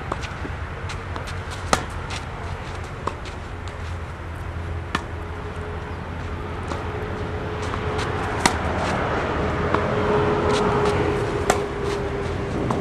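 Tennis balls struck back and forth with racquets in a baseline rally on a clay court: sharp pops every second and a half or so, the nearer player's hits louder than the far player's. In the second half a vehicle passing in the background swells with a steady hum.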